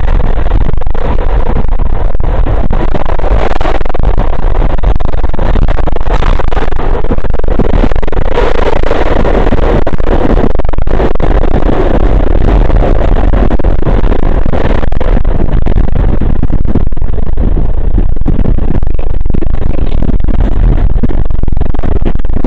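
SEPTA Market–Frankford Line subway car under way, heard from inside: loud, steady rumble and rattle of wheels on rails, swelling about eight to ten seconds in.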